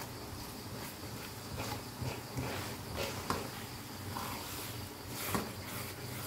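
A spatula stirring and scraping thick chilli paste around a non-stick wok, a rough scrape with each irregular stroke, over a soft sizzle of the cooking paste.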